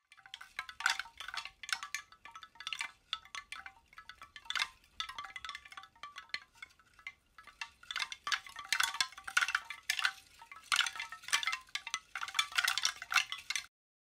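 Chimes tinkling: many light metallic strikes in quick, irregular succession, each ringing briefly, busiest in the second half and stopping abruptly near the end.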